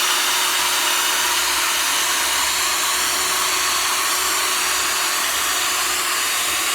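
Electric sanding tool running steadily as it wet sands a plastic headlight lens with 1500-grit paper.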